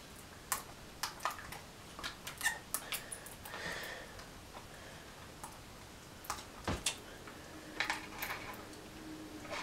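Scattered small clicks and taps of hands working plastic parts and wiring on an RC truck chassis, with a soft rustle near the middle and a dull knock about two-thirds of the way through. A faint steady hum comes in near the end.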